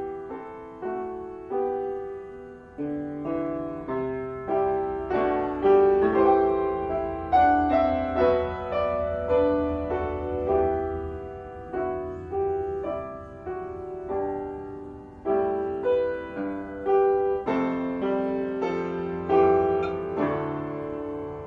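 Solo piano playing a slow, gentle piece, chords struck every second or so and left to ring and fade.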